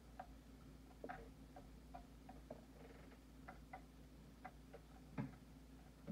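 Small, irregular clicks and crackles of cooked lobster shell being broken and picked apart by hand on a wooden cutting board, with a louder crack about five seconds in.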